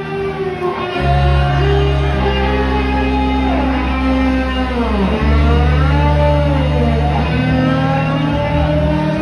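A live rock band playing loud, led by electric guitar holding long notes over bass and drums, with notes sliding down in pitch and back up about four to six seconds in. Heard from within the crowd.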